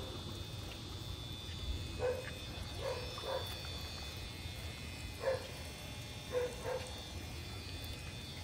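Short animal calls, about six of them and some in quick pairs, with the clearest about five seconds in. A faint steady high tone runs underneath.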